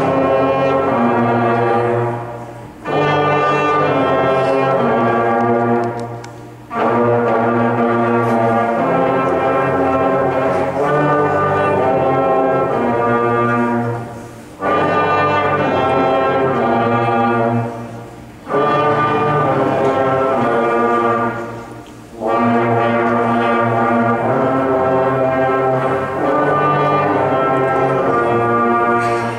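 A fifth-grade beginner brass ensemble of trumpets, trombones and low brass plays held chords together in phrases a few seconds long, with brief pauses for breath between them. The playing rings in a large hall.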